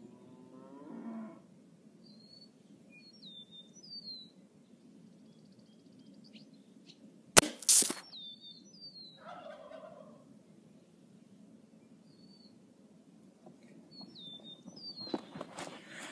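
A Gamo Whisper IGT air rifle fires once, about seven seconds in, with a sharp crack. A split second later comes a second sharp hit as the pellet strikes the shaken plastic soda bottle and knocks it over. Birds chirp now and then in the background.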